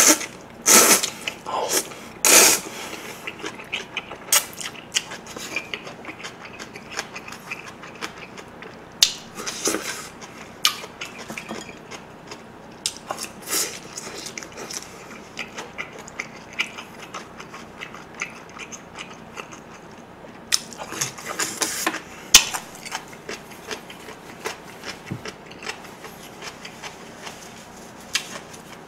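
Close-miked eating: a man slurps spicy cold mixed noodles, with two loud slurps in the first few seconds. Between further slurps there are wet chewing and lip-smacking clicks.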